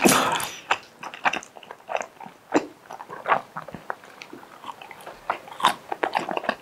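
A person eating luosifen (river snail rice noodles) close to a clip-on microphone: wet chewing and crunchy bites in quick, irregular clicks and crackles, with a louder burst right at the start.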